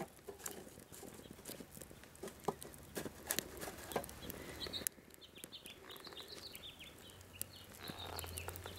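Pine sticks burning in a StoveTec rocket stove under a pot of water heating toward the boil: faint, irregular crackles and pops over light wind noise. Some faint high chirps come in partway through.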